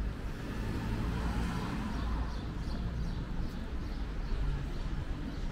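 City street ambience: a steady rumble of passing traffic with voices of people in the background.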